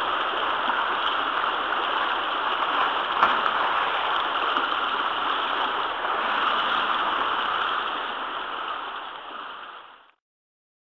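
Steady splashing and rushing water echoing in an indoor pool hall as kayaks and paddles churn the water, with one sharp click about three seconds in. It fades out near the end.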